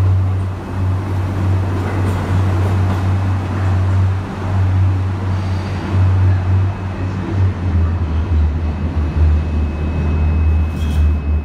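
New York City subway trains in an underground station: the steady low rumble of a train pulling out, then a thin steady high tone from about halfway through as another train approaches.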